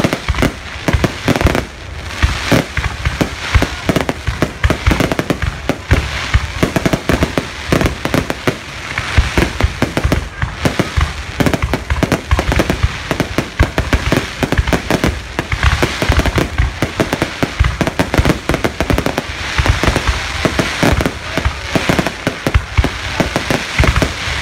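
Aerial firework shells bursting in a continuous barrage: many sharp bangs in quick succession with no pause.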